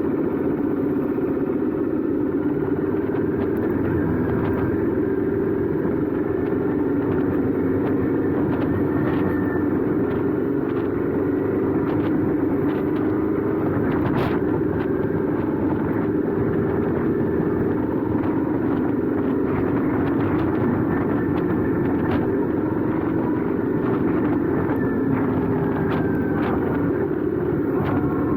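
Royal Enfield 650 parallel-twin motorcycle engine and exhaust running steadily while being ridden, at an even pitch without big revs.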